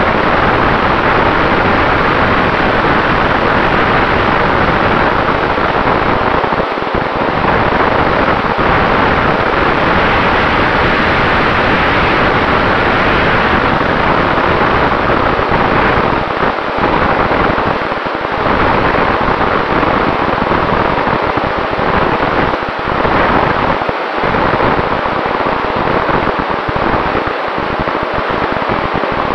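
Steady wind rush over the onboard camera's microphone of a Sonicmodell Mako FPV flying wing in flight, with a faint steady tone from its brushless electric motor and propeller running under it. The wind noise sinks briefly a few times toward the end.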